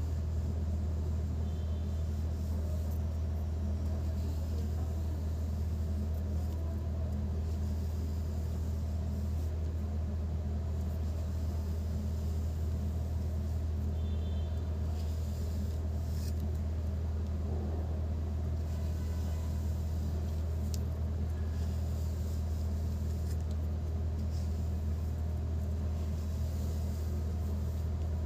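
A steady low hum runs unchanged throughout, with a few faint light ticks over it.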